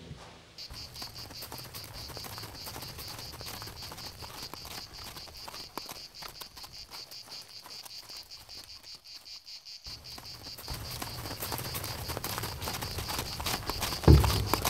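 Insects chirring: a steady, high, rapidly pulsing drone. A heavy low thump near the end.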